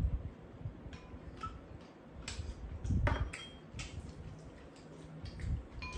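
Spoons and chopsticks clicking against ceramic bowls and a pan at a meal, with scattered eating sounds and a few soft low thumps, the loudest about three seconds in.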